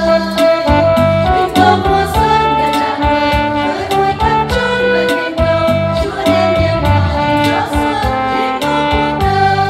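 Small women's choir singing a Vietnamese Catholic hymn to electronic keyboard accompaniment with a steady beat.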